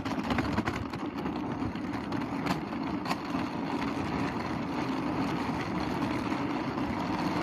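Wheels of a rolling suitcase rumbling steadily over paving, with a few sharp clicks in the first three seconds.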